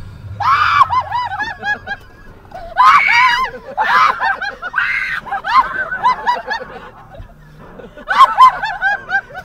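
High-pitched human screaming mixed with shrieking laughter, in five or six loud bursts, each broken into quick rapid shrieks.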